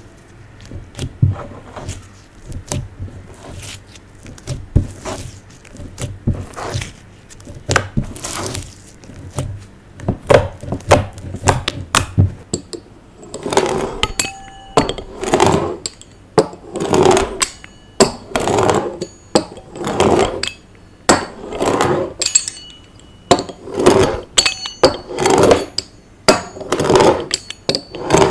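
Scattered taps and clicks, then, from about halfway, rhythmic squishing of slime being worked by hand, a little more than one squish a second.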